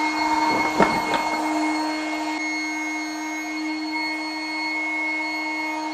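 Marlin GP80B electric boat pump running steadily at one even pitch as it inflates the PVC boat's tubes, its motor just up to speed. A couple of sharp knocks about a second in.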